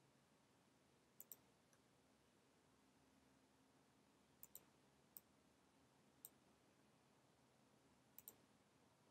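Near silence: faint room hiss with about nine sharp computer mouse and keyboard clicks, several in quick pairs about a tenth of a second apart.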